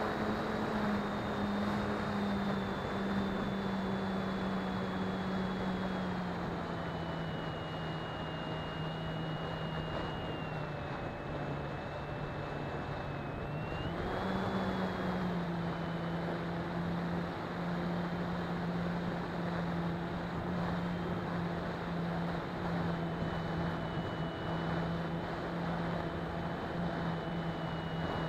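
A model plane's motor and propeller run steadily with a high whine over the rush of passing air, heard from the onboard camera. The pitch drops as the throttle comes back about six seconds in, then rises again at about fourteen seconds and holds.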